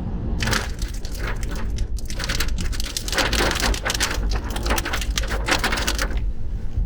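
Heavy rain and road spray hitting a car, heard from inside the cabin through a slightly opened window, over a steady low road and engine rumble. The dense, irregular hiss of hits comes in about half a second in and dies away near the end.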